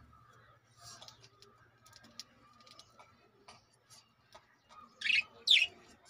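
Budgerigars chirping: faint, scattered short chirps, then two loud calls in quick succession near the end.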